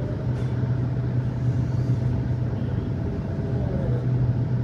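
Steady low machine hum over a rumbling background noise, with a faint thin whine above it.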